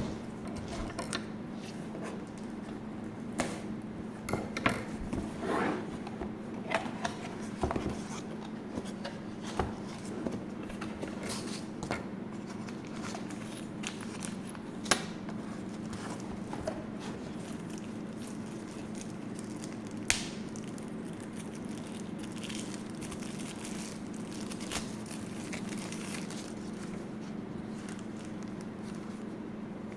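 Hands handling packaging and equipment: scattered clicks, crinkles and scrapes, busiest in the first half and sparse later, over a steady low hum.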